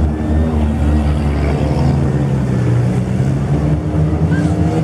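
Several demolition derby car engines running at once, their pitches drifting slightly up and down.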